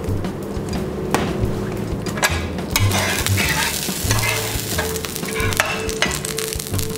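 Metal spatula scraping across an electric griddle plate, spreading a thin film of vegetable oil that sizzles on the hot surface; the sizzle grows stronger from about three seconds in.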